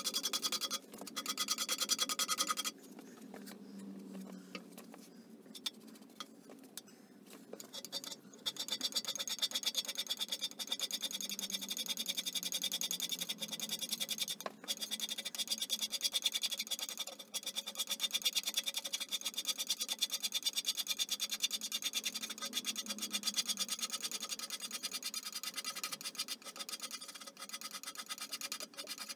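Hand scraper cutting the cast-iron bed ways of a Holbrook T13 lathe in quick, repeated scratchy strokes, scraping the worn ways back to true. The strokes go quieter from about 3 to 8 seconds in, then carry on steadily.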